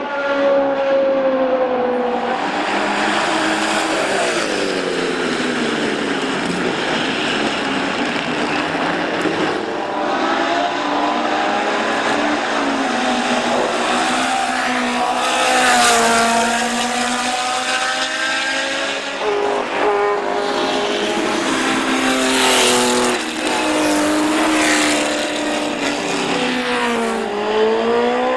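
Historic 1970s endurance racing cars running on track at racing speed, one after another and sometimes overlapping. Their engine notes fall away under braking and downshifts, then climb again as they accelerate.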